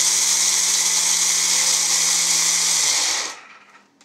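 Electric kitchen combine's grinder attachment running, grinding cocoa beans with a steady motor hum and whir. It is switched off about three seconds in and the motor winds down.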